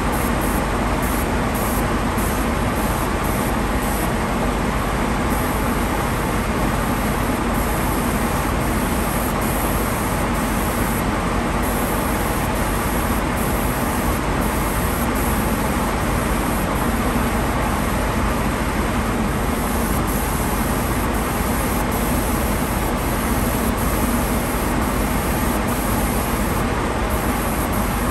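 Compressed-air spray gun hissing steadily as it sprays Cerakote coating, over a constant low hum.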